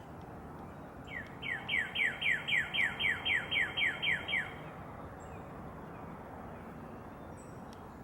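A songbird singing a fast run of about a dozen clear whistled notes, each sliding down in pitch, at roughly three to four notes a second for about three seconds, over a steady outdoor background hiss.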